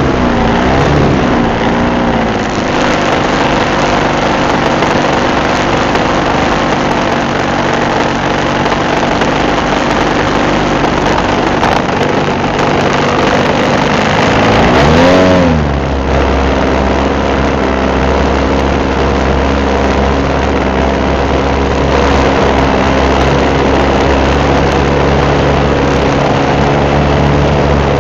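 Engine and propeller of a radio-controlled Cessna 182 scale model running in flight, picked up by its onboard camera with a steady rush of air over it. The pitch swings up and down briefly about halfway through, then it runs on steadily with a deeper hum.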